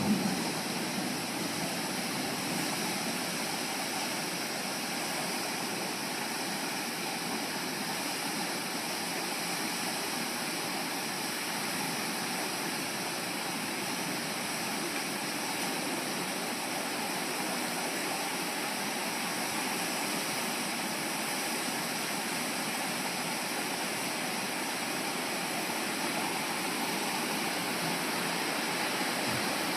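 Floodwater rushing steadily, a constant hiss-like torrent with no change in strength.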